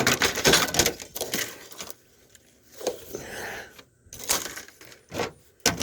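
Pieces of a dismantled TV clattering as they are tossed onto a pile: a dense run of knocks and rattles for about two seconds, then a few separate knocks.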